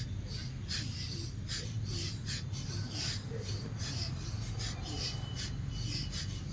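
Bhastrika pranayama (bellows breath): a rhythmic run of short, forceful breaths through the nose, about two to three a second, over a low steady hum.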